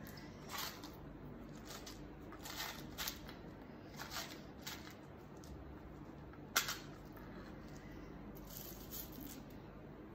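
Small metal charms clinking and rattling in a little clear cup: faint scattered clicks, one sharper click about six and a half seconds in, and a light rattle near the end.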